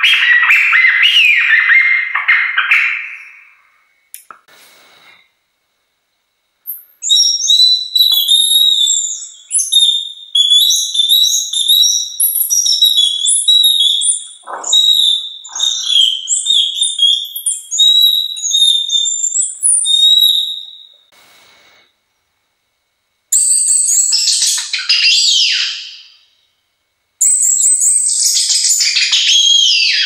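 Hand-blown bird-call whistles imitating birdsong. A lower warbling phrase ends about three seconds in. A long run of rapid, high twittering chirps follows from about seven to twenty-one seconds, then two shorter high phrases with downward-gliding notes come near the end.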